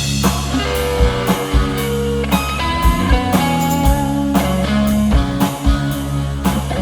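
Instrumental rock music: guitar melody over bass and a steady drum-kit beat.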